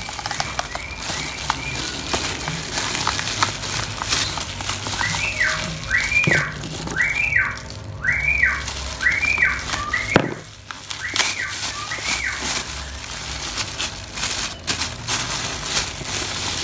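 Crinkling of a clear plastic bag being handled and cut open with scissors, with short rustles and snips. Over it, in the first part, a high whistled tone rises and falls about once a second, around eight times.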